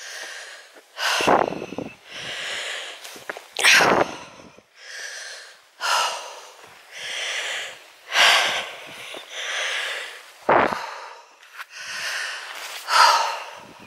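A hiker's heavy breathing as she climbs a steep hill under a full pack: hard, hissing breaths in and out, about one a second, the sound of exertion.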